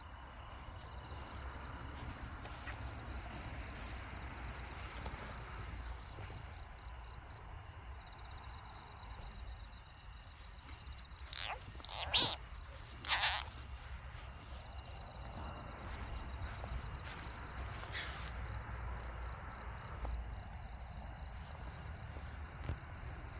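Crickets chirring in one steady, high-pitched trill. A few brief sharp sounds stand out about halfway through.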